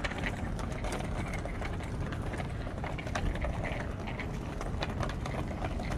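Outdoor street ambience: a steady low rumble with scattered small clicks and faint distant voices.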